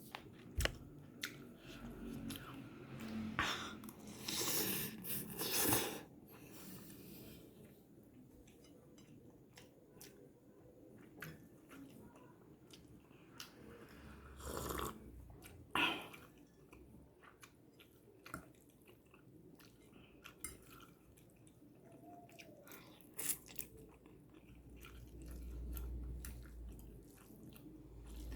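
Close-up chewing and mouth noises of someone eating fried instant noodles: scattered small wet clicks, with a few louder bites and bursts of eating noise around four to six seconds in, near the middle, and once more later.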